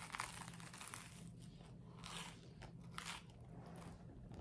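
Close-up crunching and chewing of crusty garlic bread, a few crisp crunches about a second apart.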